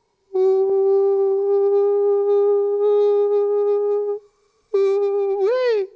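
A man's voice holding a long hummed note, steady in pitch, for about four seconds, then after a short break the same note again, swooping up and back down near the end.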